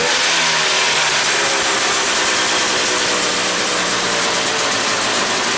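1972 Ski-Doo Élan snowmobile's single-cylinder 247 cc Rotax two-stroke engine running at a steady speed.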